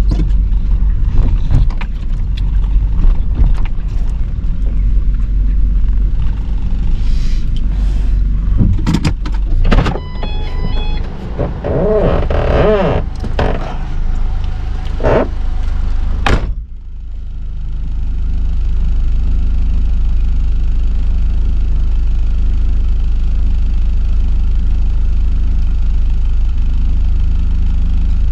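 A van's engine idling, heard from inside the cab as a steady low rumble. Through the first half there are knocks, clicks and clatter while the driver's door is open and things are handled, and after a sudden change about halfway, only the steady idle remains.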